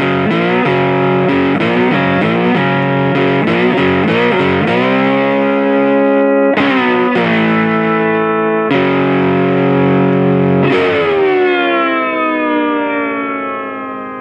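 Intro music on distorted electric guitar: a run of quickly struck chords, then a few held chords, the last of which rings out and slowly fades.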